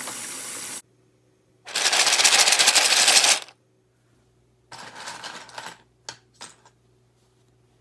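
RK61 keyboard being cleaned. A steady hiss cuts off under a second in, then comes a loud, fast rattling burst of nearly two seconds, then a softer stretch of scrubbing and a couple of sharp clicks near the end.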